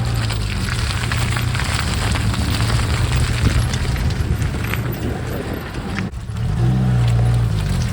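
Maruti Gypsy's engine working under load off-road, with knocks and rattles from the vehicle over rough ground. The revs dip briefly about six seconds in, then climb again.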